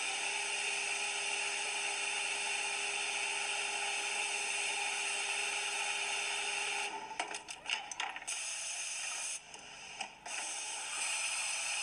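Steady hiss and whir of an automatic industrial sewing unit, broken about seven seconds in by a quick run of mechanical clicks and a short drop in level just before ten seconds.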